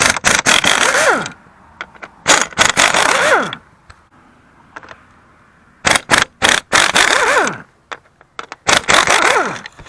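Impact wrench hammering out the 13 mm bolts that hold a seat back to its base, in four short bursts. Each burst ends with the tool's motor winding down in falling pitch.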